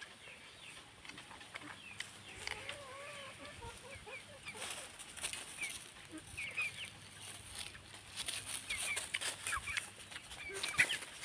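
Chickens clucking, with a run of soft arched clucks a few seconds in and many short high chirps throughout. Bursts of rustling noise come about halfway through and again near the end.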